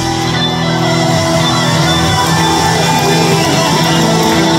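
Live rock band with loud amplified electric guitars played on Les Paul-style guitars, holding sustained, ringing chords and notes.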